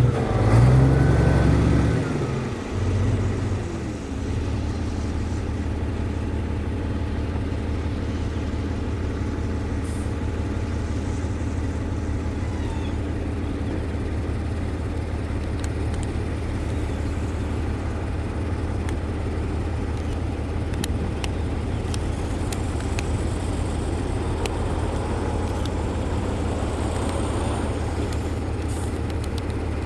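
Heavy diesel engine of road-building machinery, loud and changing in the first few seconds, then settling into a steady low drone.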